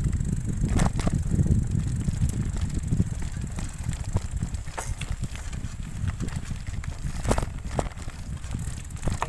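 Bicycle riding over a rough dirt and gravel road: a steady low rumble from the tyres and jolting, with scattered rattles and knocks as it rolls over stones.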